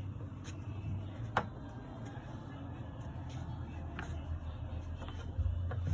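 Rolling pin rolling out roti dough on a board: a low rumble with a few light knocks.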